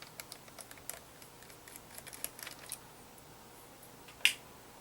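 Faint small clicks and ticks of a screwdriver and a tiny screw being worked loose on a laptop's heatsink, then one sharper click near the end.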